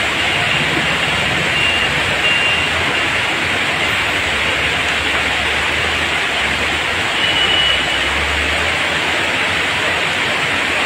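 Muddy floodwater pouring down a flight of steps, a loud, steady rush of water.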